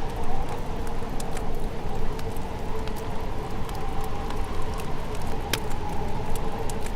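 Wood fire crackling, with irregular small pops and one sharper pop about five and a half seconds in, over a steady low rumble and a faint steady hum.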